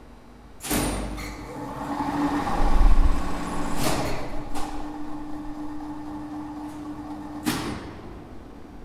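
Two-speed lift winch with a cage induction motor making a run: a contactor clacks in, the motor starts and swells to a peak, then hums steadily. Two more contactor clicks come about half a second apart near the middle, and a last clack near the end stops the hum. The braking resistors are switched in for this run.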